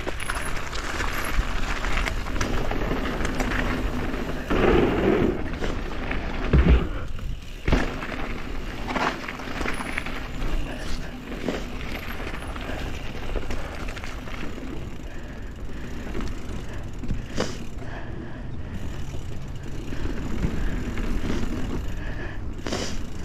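Mountain bike riding down a dirt trail strewn with dry leaves: a steady rolling, rattling rumble of tyres and bike over the ground, with a few sharp knocks from bumps, the loudest about seven seconds in.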